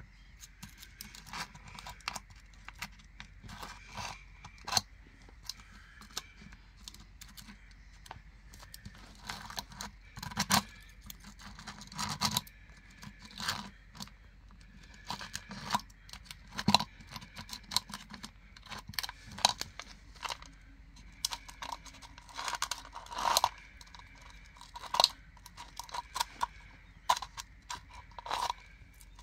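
Plastic candy packaging being handled and torn open, crinkling and crackling in irregular bursts with a few sharper snaps.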